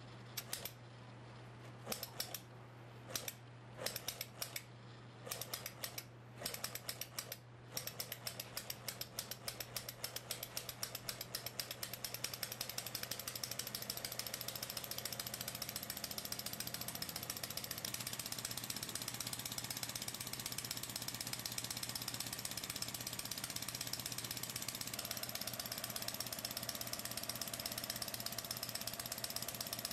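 Lego Technic pneumatic flat-twin boxer engine with small cylinders, its pistons, valve and plastic parts clattering. It catches in fits and starts for the first several seconds, then picks up speed into a fast, steady run of clicks.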